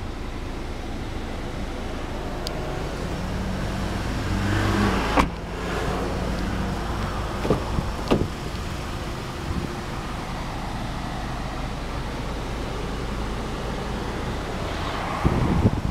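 Handling sounds of a 2008 Honda Accord's doors: a sharp knock about five seconds in, like a door shutting, and a few lighter clicks of the handle and latch a few seconds later, over a steady low rumble.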